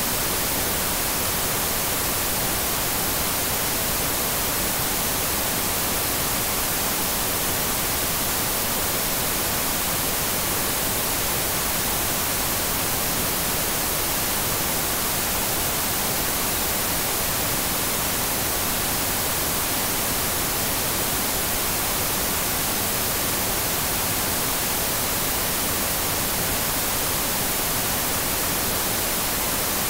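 Television static: a steady, even hiss of white noise, heaviest in the high treble.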